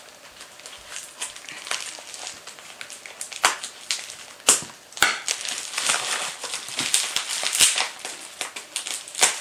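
Plastic packaging crinkling and crackling as a tightly packed parcel of dried fish is unwrapped by hand, with irregular sharp snaps, the loudest a few seconds in and near the end.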